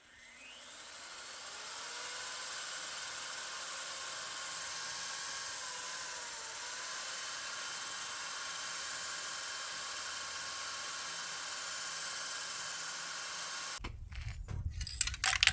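Electric drill spinning up and boring steadily into the steel of a trailer to make mounting holes. Near the end it gives way abruptly to knocking and handling noise.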